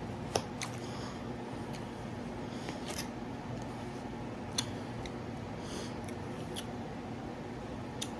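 Someone eating watermelon: a few sharp, wet mouth clicks scattered among quiet chewing, over a steady low hum.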